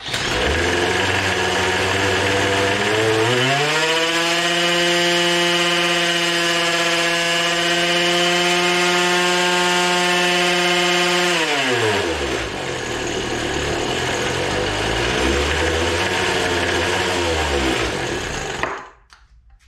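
Poulan Pro leaf-blower two-stroke engine running on nitromethane RC car fuel. It starts abruptly, climbs about three seconds in to a high, steady rev held for several seconds, then drops back to a lower, uneven run and dies out near the end. It keeps revving on its own because of an air leak between the carburettor and the manifold.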